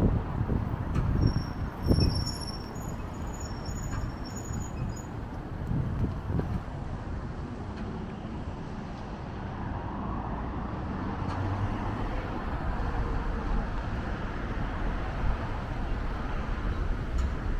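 Steady city road traffic, cars passing, with a few low thumps of wind on the microphone in the first couple of seconds and some faint high chirps.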